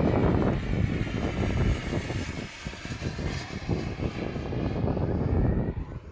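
Turbine jet engine of a giant-scale radio-controlled A-10 model flying past: a steady jet roar with a thin high whine over it, dropping off about six seconds in.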